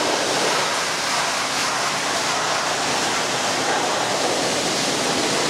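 Pressure washer spraying water, a steady unbroken hiss.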